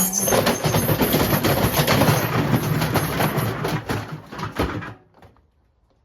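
Beko washing machine running hard with a concrete weight in its drum, the cabinet rattling and banging loudly with a fast clatter of knocks. It stops about five seconds in.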